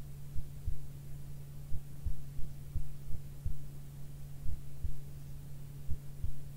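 A steady low hum with soft, low thumps repeating about three times a second at slightly uneven intervals.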